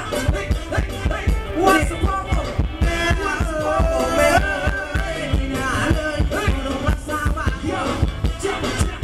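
Thai ramwong dance music played live by a band, a singer's voice over a steady, heavy drum beat.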